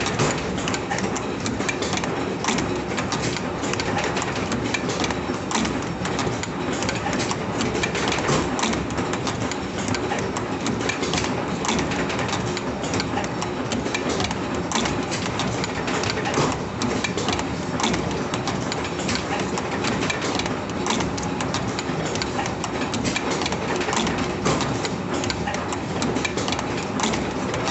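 CNC spring-making machine running steadily: a continuous mechanical hum overlaid with a dense, rapid clatter of clicks and knocks.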